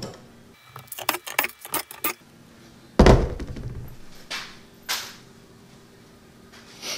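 Handling noises in a woodshop. A quick run of sharp, light metallic clicks, then one heavy thunk about three seconds in, followed by a few fainter knocks.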